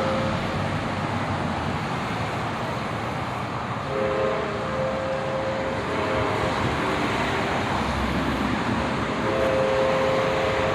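Sounder commuter train running past with a steady rumble. Its locomotive horn sounds a chord for about two seconds starting four seconds in, and again near the end.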